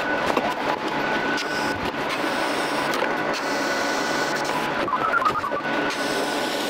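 TIG welding arc on a stainless steel pipe manifold: a steady buzzing hiss with a thin, constant high whine over it.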